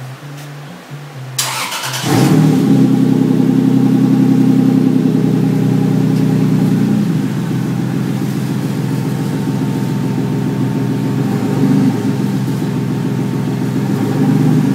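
Twin-turbo engine in a 1965 Ford Mustang cranking and catching about two seconds in, then running at a steady idle. The idle settles a little about halfway through, with a brief blip of revs near the end.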